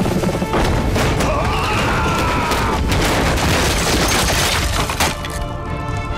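Action-scene sound effects: several sharp bangs and crashes in a dense, noisy rumble over dramatic music. About five seconds in the effects cut off and the music continues alone with held notes.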